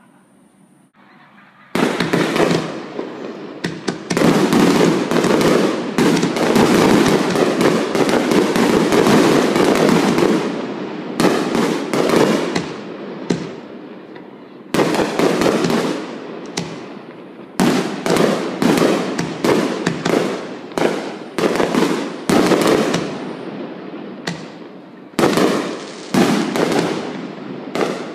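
Aerial firework shells bursting in a rapid barrage. It starts suddenly about two seconds in as a near-continuous roll of booms and crackle. After the middle it breaks into separate bangs, about one or two a second.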